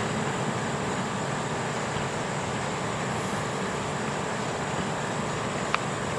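Steady running hum of a hot tub's pump motor, with one brief sharp click near the end.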